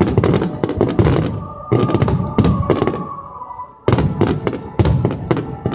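Fireworks display: a rapid barrage of shells bursting, with dense bangs and crackling. The barrage eases off about three seconds in, then resumes with a sudden loud burst about a second later.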